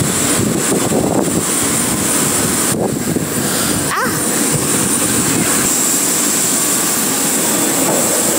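Steady jet aircraft turbine noise: a loud rush with a high-pitched whine over it.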